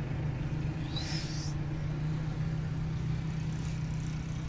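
Steady low hum of a running motor, with one short, high rising chirp about a second in.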